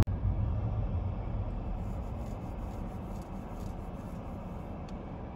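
Car road noise heard from inside the cabin: a steady low rumble of tyres and engine that eases off somewhat over the first few seconds.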